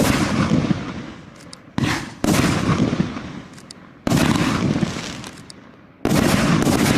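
A 2-inch, 25-shot fireworks battery firing: four shots bang in turn, each followed by a dense crackling hiss of glittering flashing stars that fades over about two seconds.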